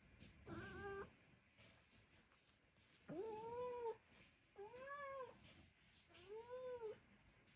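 A Minuet cat meowing four times, each call under a second long, the last three rising and then falling in pitch: complaining meows.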